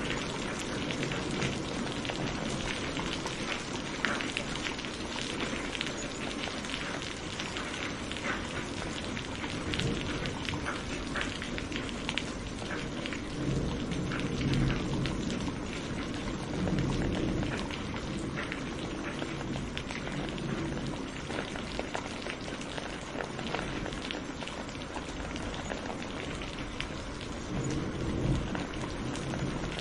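Steady rain falling, with many separate drops ticking through it. A few low rumbles swell up around the middle and again near the end.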